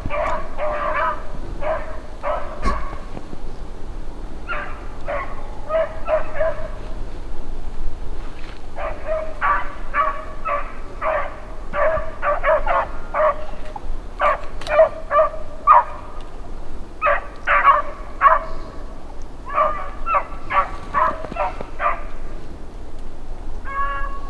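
Beagles baying on a rabbit's trail: runs of short, pitched barks coming in clusters with brief gaps, the sound of the pack running a fresh rabbit.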